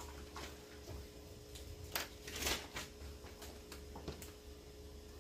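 Quiet room tone with a steady low hum, broken by a few faint clicks and brief rustles of small objects being handled, the fullest rustle about two and a half seconds in.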